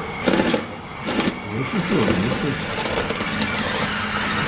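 Radio-controlled Komatsu PC88 model excavator tracking into a pile of loose soil: its small electric drive motors whine with a wavering pitch. There are two short scraping knocks about a third of a second and a second in, and a gritty scraping of blade and tracks through the dirt in the second half.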